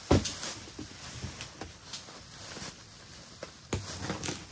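Plastic bags rustling and a cardboard box being handled, with a few short knocks and clicks.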